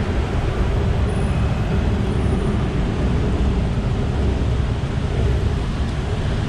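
Dense city road traffic: a steady rumble of engines and tyres on a wet road, with a faint steady hum through it.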